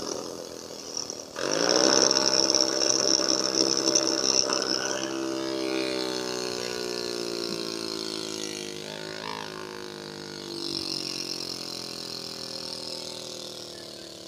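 A homemade miniature engine with a ball-bearing flywheel, run on compressed air from a bottle, starting suddenly about a second and a half in with a fast-rising whir and a hiss of escaping air. Its pitch then slowly falls as it runs down on the bottle's falling air pressure.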